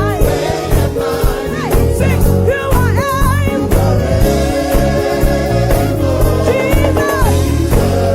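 Live gospel praise music: a band with bass, keys and drums playing a steady groove while voices sing wordless, melismatic lines over it.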